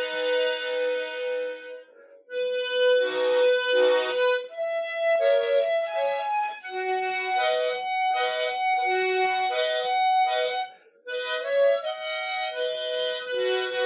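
Solo harmonica playing a slow melody in held notes, dry and without echo or reverb. It breaks off twice for a moment between phrases, about two seconds in and about eleven seconds in.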